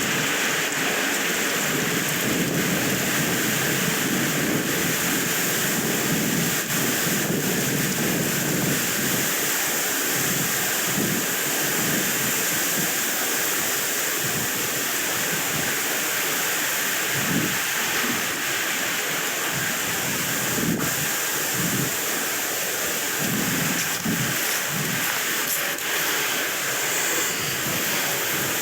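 Wind blowing across the microphone: a steady, rumbling rush that swells in gusts.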